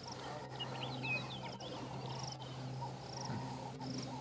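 Outdoor wildlife ambience: short high chirps repeating about once a second, with a few warbling calls in the first half, over a steady low hum.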